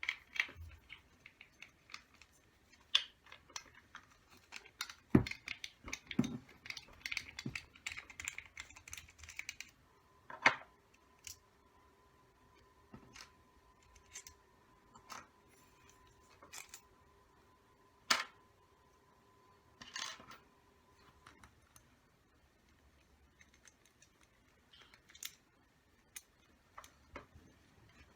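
Small metal engine parts and hand tools clicking, tapping and clattering on a work surface as a model nitro engine is taken apart, with a denser patch of rattling early on and scattered single knocks after. A faint steady tone hums underneath for about ten seconds in the middle.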